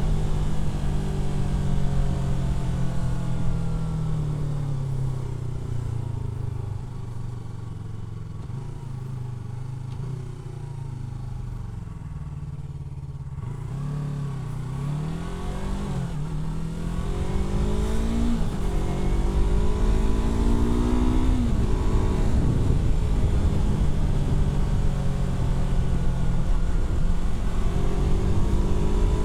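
Yamaha R3's parallel-twin engine slowing down for about the first twelve seconds, then pulling away through three rising revs, each cut short by an upshift, then running steadily at cruising speed.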